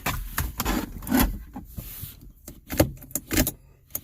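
Irregular plastic clicks, knocks and rattles from the Kia Optima's gear shifter console trim being pulled up and handled.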